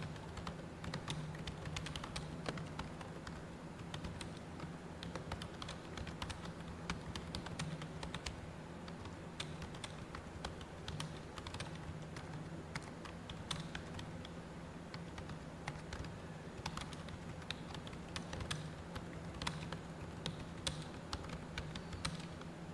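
Computer keyboard being typed on fast and continuously, a dense, uneven run of key clicks, over a low steady hum.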